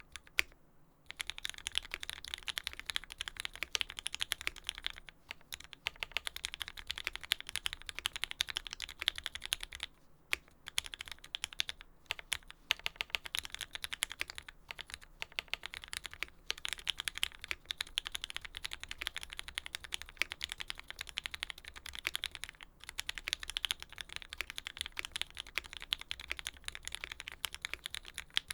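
Steady, fast typing on a custom mechanical keyboard with lubed Tealios V2 linear switches fitted with Cherry top housings, an aluminium plate and GMK keycaps: a dense run of keystrokes broken by a brief pause about half a second in and a few short pauses later.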